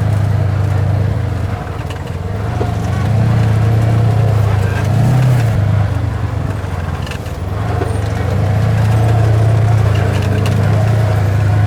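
Small vehicle engine running steadily, easing off slightly twice and coming back up.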